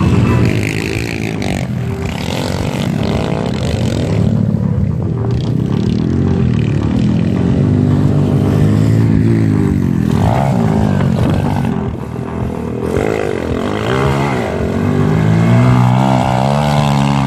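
125cc pit bike engines revving up and down over and over as the bikes are ridden hard round a dirt motocross track.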